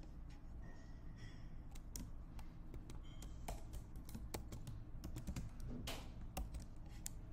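Keystrokes on a computer keyboard: irregular typing that picks up about two seconds in, over a faint low hum.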